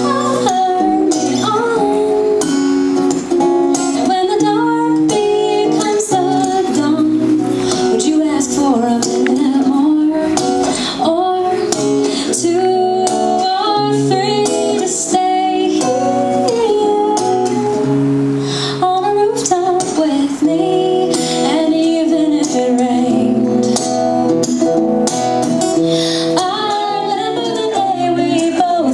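A woman singing live while strumming an acoustic guitar, her voice amplified through a microphone and PA. The melody moves steadily over a regular strummed rhythm.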